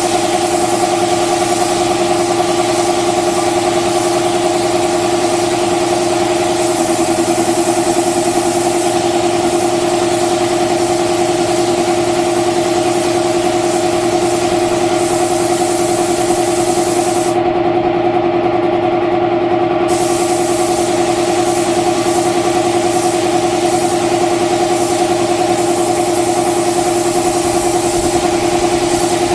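Spray-painting rig running steadily: a constant motor hum with the hiss of a paint spray gun laying a coat of red paint onto a car body. The high hiss drops out for a couple of seconds a little past halfway.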